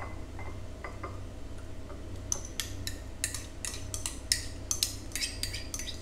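Metal spoon scraping and clinking against a ceramic ramekin as thick chocolate chia-seed pudding is scooped and tipped into a second ramekin. A few light taps at first, then a quick run of scrapes and clinks from about two seconds in.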